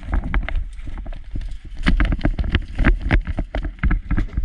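Boots hurrying over a wooden plank walkway: a quick, irregular run of hollow knocks over a heavy low rumble from the jostled body-worn microphone.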